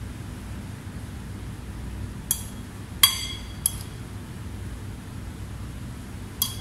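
Crockery and utensils clinking: four sharp clinks, the loudest about three seconds in with a brief ring, over a steady low hum.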